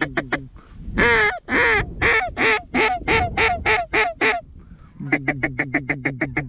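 Waterfowl call blown by a hunter. It starts with a fast, even run of short notes, about eight a second. About a second in comes a series of longer, loud calls that get shorter and faster, and the fast run starts again near the end.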